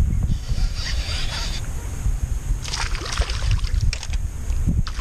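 A hooked bass splashing at the surface beside a small fishing boat: two bursts of hissing splashes, the first just after the start and the second about halfway through, over a gusty rumble of wind on the microphone. A few sharp clicks come near the end.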